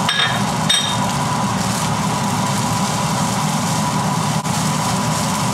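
Stir-frying in a wok under a running kitchen range-hood fan: a steady whirring hum, with two short clinks of the metal spatula against the wok in the first second.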